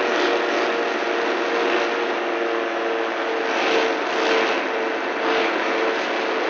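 Small aircraft engine running steadily, with wind rushing past the microphone and swelling several times.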